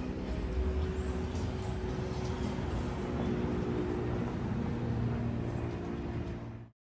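Road traffic: cars and a pickup truck driving past, engines running with a steady low hum under tyre and road noise, with a few faint high chirps. The sound cuts off abruptly just before the end.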